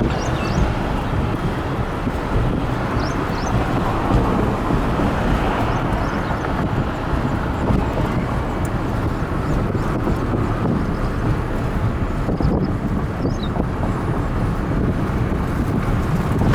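Wind buffeting the microphone over a steady rushing noise, with a few faint short high chirps.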